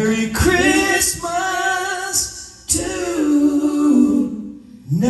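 Live band's male and female singers in harmony, singing slow, drawn-out phrases with little instrumental backing; the singing breaks off twice between phrases.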